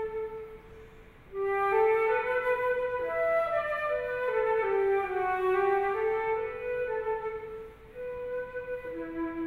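Solo concert flute playing an Irish tune in a single melodic line of held notes, with a pause between phrases about a second in and a brief breath near the end.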